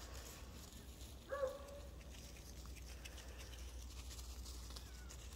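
A short, faint animal cry, heard once about a second and a half in, over a steady low rumble.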